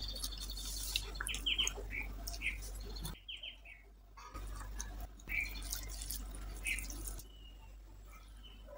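Fingers mixing and squeezing rice with chicken curry on a banana leaf, giving soft wet squishes and small clicks, then a mouthful taken near the end. Short, quick chirps from a small bird come in now and then in the background.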